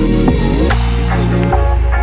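Background music with a deep bass line that changes note about every second and drum hits over it.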